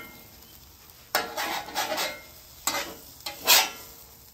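A metal spatula scrapes across a steel flat-top griddle several times, pushing scrambled eggs into shape and sliding under them. The scrapes start about a second in, and the loudest comes near the end. A faint sizzle of the eggs runs between the scrapes.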